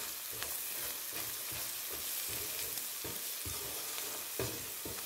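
Onion, tomato and berbere base frying in oil in a nonstick pan: a steady sizzle, with the soft irregular scrape and tap of a wooden spatula stirring it.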